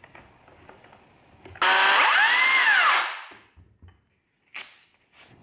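Makita cordless chainsaw briefly run: the electric motor and chain start suddenly with a whine that rises and then falls in pitch, released after about a second and a half and coasting to a stop. A few light handling clicks come before it.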